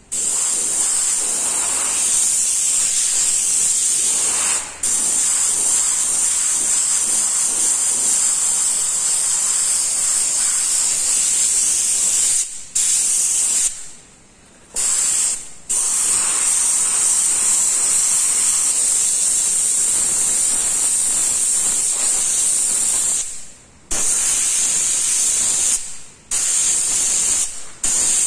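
Gravity-feed airbrush hissing steadily as it sprays paint. The air stops for a moment about six times as the trigger is let go, the longest break about a second and a half near the middle.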